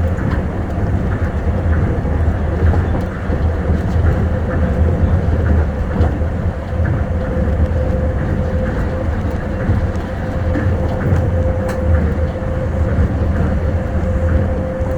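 Tokyo Monorail 1000 series train running steadily along its line: a low rumble of the running gear with a steady whine held at one pitch, and faint scattered ticks.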